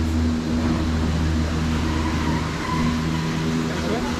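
A car running, with a steady low hum and road noise.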